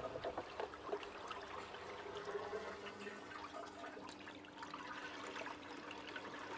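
Water running faintly through a small perspex flume channel, trickling and splashing as it spills over a model broad-crested weir, with a faint steady hum underneath.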